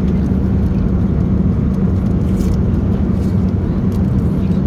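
Steady low rumble of an Airbus A320neo airliner heard from inside the passenger cabin, with a constant hum over it: the engines and airflow in flight.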